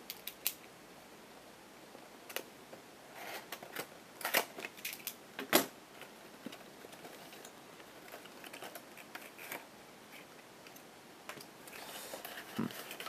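Scattered light clicks and brief rustles of hands handling plastic puzzle packaging as a puzzle is unpacked.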